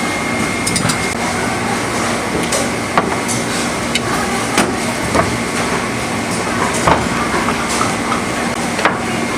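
Irregular knocks, several seconds apart, over a steady background din. They come from butchering a whole pig: the blade strikes the chopping block as the carcass is cut up.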